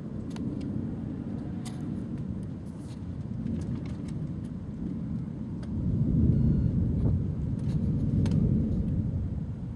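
Low rolling rumble of thunder that swells about six seconds in and eases off near the end, with scattered sharp ticks over it.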